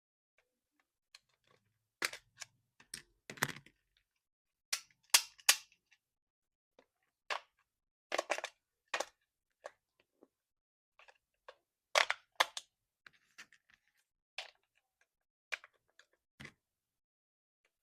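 Hands unboxing and handling a toy RC car and its packaging: irregular clicks, taps and short crinkles, with a few sharper snaps among them.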